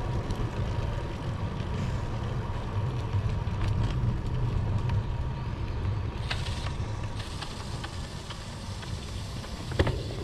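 Wind and road noise on a camera riding along on a moving bicycle: a steady low rumble with a few faint clicks. It drops away suddenly at the very end.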